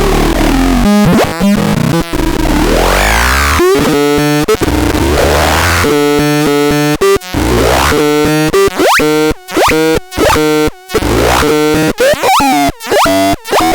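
Harsh electronic synthesizer noise: buzzy stacked tones chopped into stuttering fragments, with fast pitch sweeps up and down and abrupt cut-offs.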